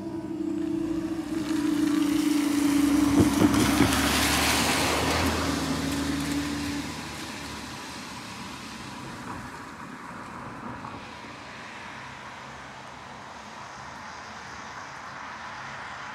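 Level crossing barrier motor humming steadily as the barriers rise, stopping about seven seconds in once they are up. Over it a car passes, loudest between about two and five seconds in, with a few knocks around three seconds.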